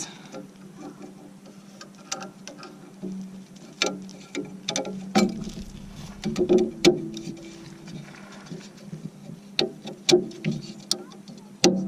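Irregular light clicks and knocks of skid-plate hardware being handled and fitted onto mounting studs, a spacer being pressed on, over a steady low hum.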